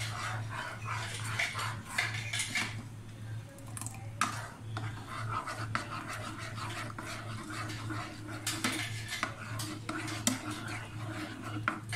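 A spatula scraping and tapping against a saucepan as thick mango pulp in sugar syrup is stirred, in irregular scrapes and clicks over a steady low hum.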